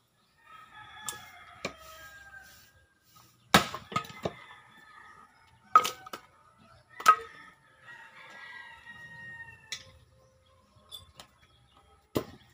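Axe chopping firewood on a chopping block: sharp wooden chops, three hard blows among several lighter knocks. A rooster crows near the start and again near the end, a long call that cuts off about ten seconds in.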